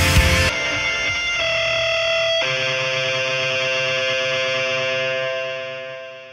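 Closing theme music: the drums stop about half a second in, leaving held chords that change twice and then fade out near the end.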